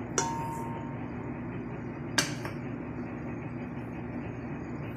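Two sharp clinks of metal kitchenware against the stainless steel mixing bowl, about two seconds apart, the first ringing briefly, over a steady low background hum.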